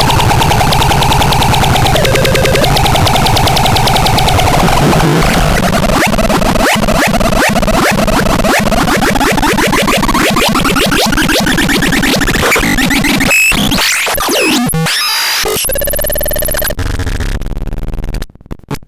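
Synthesizer playing harsh, noisy electronic tones: a wavering pitched drone at first, then sweeping glides up and down, breaking into rapid stuttering cut-outs near the end.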